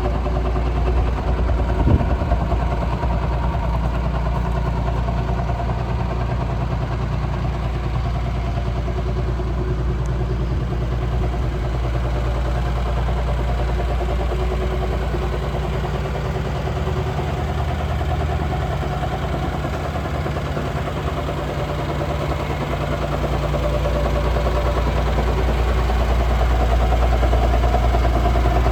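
Liebherr 932 excavator's diesel engine idling steadily, with one brief knock about two seconds in; it grows a little louder over the last few seconds.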